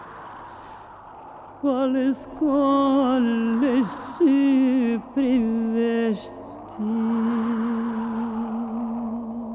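A solo voice singing a slow, ornamented melody with heavy vibrato in a few short phrases, then holding one long note for the last few seconds. Behind it, a soft rushing sound swells and fades.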